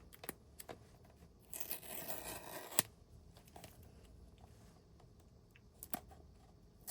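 Paper tear-strip tabs being ripped off the seal of a cardboard Apple product box: one tearing rip of about a second, ending in a sharp snap, with a few light clicks and rustles around it.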